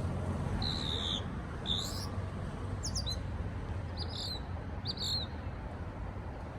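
A songbird singing short high whistled phrases, about five of them roughly a second apart, some sliding down in pitch and some sliding up, over a steady low background rumble.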